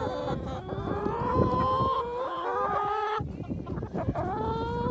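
A flock of chickens calling together, several long, drawn-out calls overlapping one another, with a short lull a little after three seconds before another call rises.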